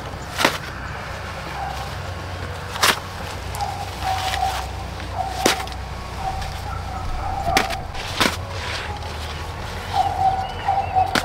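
Sharp knocks at irregular intervals, about six in eleven seconds, over a steady outdoor background, with a bird or fowl calling on and off.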